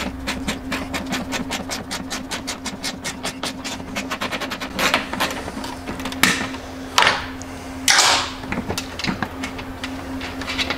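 Hand ratchet clicking rapidly, about eight clicks a second, as it backs off a nut. The clicking stops about four and a half seconds in, followed by a few short scrapes and rustles of small parts being handled. A steady low hum runs underneath.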